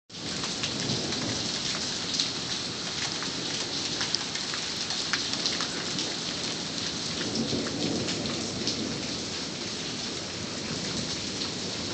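Steady heavy rain, with many individual drops ticking on a nearby surface, and a low rumble of thunder swelling a little past the middle.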